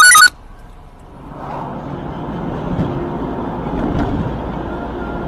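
Car driving along a road, heard from inside the cabin: steady engine and road noise that builds up from about a second in and then holds. Right at the start there is a brief, very loud, sharp high-pitched burst.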